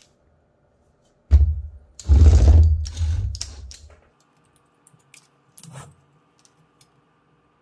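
A heavy lithium battery pack in plastic cell holders being turned over and set down on a cutting mat: a knock about a second in, then about two seconds of knocking and scraping, and a light click near the end.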